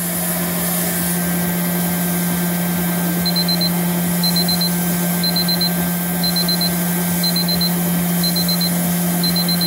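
Taylor digital probe thermometer alarm beeping in quick groups of four, once a second, starting about three seconds in, as the probe reading passes its 100 °C set temperature. Under it runs a steady low hum with a hiss.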